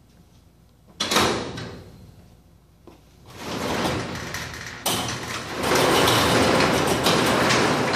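Commercial sectional vertical-lift overhead door being unlocked and raised: a sharp clack about a second in as the lock is released, then the steel panels rattling and rumbling up the wall tracks, getting louder from about five seconds in. Its torsion springs have just been tensioned to counterbalance the door.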